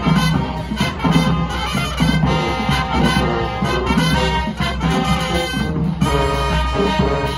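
Marching band brass section, with trumpets, trombones and sousaphones, playing an upbeat tune live on the field.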